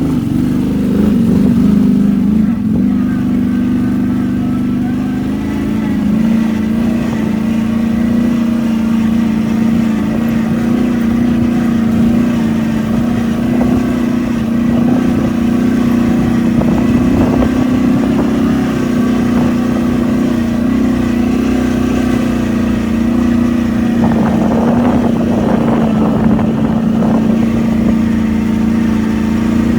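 ATV engine running at a steady, fairly constant speed while riding, with a few seconds of rougher, crackling noise mixed in near the end.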